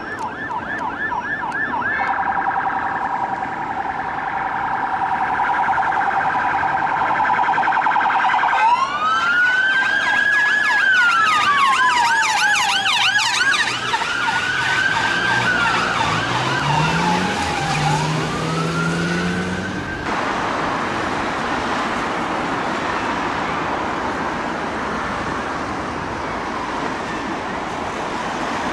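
UK police car sirens. A fast yelp runs for the first several seconds. After a cut, a slow wail rises and falls in long sweeps, with a faster yelp over it and a deeper tone rising underneath near the end. About 20 seconds in, the sirens give way to steady road traffic noise.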